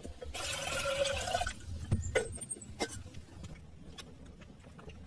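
Water pouring into a metal kettle: a rushing splash lasting about a second. After it come scattered sharp snaps from the twig fire under the kettle.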